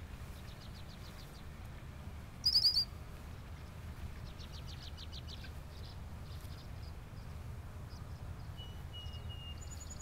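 Small songbirds calling: short runs of quick high chirps and trills, a brief loud burst of high notes about two and a half seconds in, and a thin whistled note near the end, over a low steady rumble.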